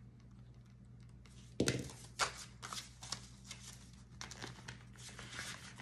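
Paper banknotes and a clear plastic binder pouch rustling and crinkling as the cash is handled. A knock comes about a second and a half in, then a run of short rustles.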